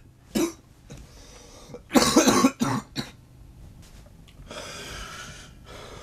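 A man coughing: a single cough about half a second in, then a loud fit of several coughs around two seconds in, followed by heavy breathing.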